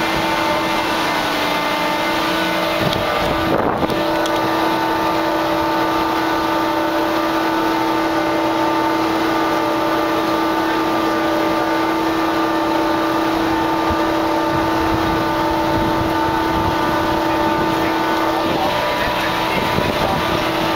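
Steady machinery hum aboard a ship, with a constant pitched drone over a noisy rush and wind on the microphone. There is a brief bump about four seconds in.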